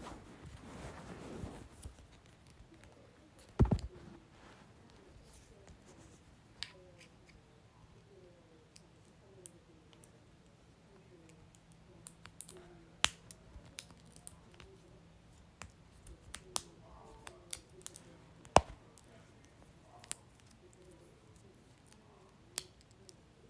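Scattered sharp clicks and taps in a small room. A brief rustle opens it, a louder knock comes about four seconds in, and the loudest click comes about two thirds of the way through.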